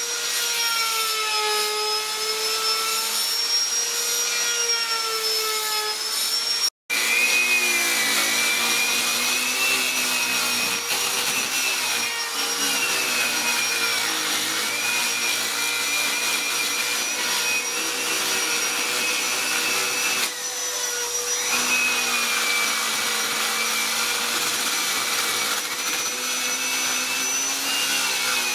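Electric angle grinder running steadily as its disc grinds a wooden carving, a whining motor tone that wavers slightly in pitch as the disc bears on the wood. The sound breaks off for a moment about seven seconds in.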